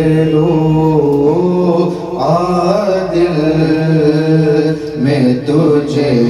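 Men singing a naat unaccompanied, in long drawn-out notes that slide up and down in pitch over a steady low held note, with brief pauses for breath about two and five seconds in.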